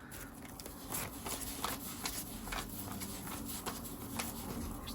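Paper banknotes being handled and counted out by hand: soft rustling with many small, irregular clicks and taps.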